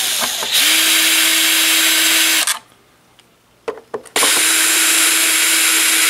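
Cordless drill/driver backing out the mounting screws of an 8-inch speaker in an amp cabinet, its motor running at a steady pitch. It stops about two and a half seconds in, a few clicks follow, and it runs again from just after four seconds.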